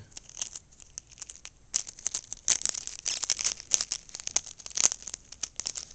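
Thin, almost transparent adhesive tape crinkling and crackling in irregular bursts as fingers press it down over the open half of a plastic Easter egg, busier from about two seconds in.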